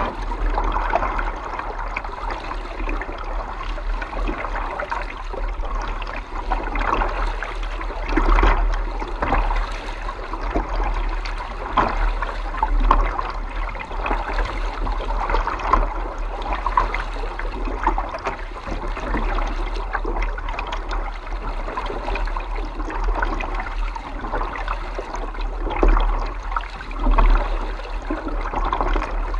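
Water splashing and lapping against a kayak's hull as it is paddled, in uneven swells every second or two, over a steady low rumble.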